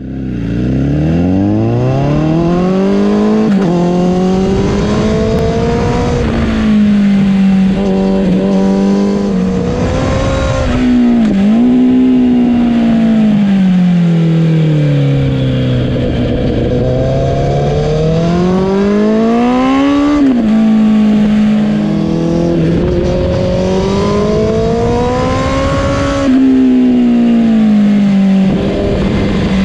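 Honda CBR1000RR's inline-four engine under way. Its pitch climbs under acceleration, drops suddenly several times as gears change, and sinks low and slow for a stretch in the middle before climbing again.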